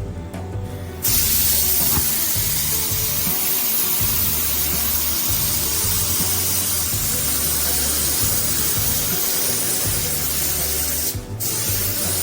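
A loud, steady spraying hiss from a pressurised nozzle starts abruptly about a second in and stops briefly near the end before starting again. Background music with a steady bass line plays under it.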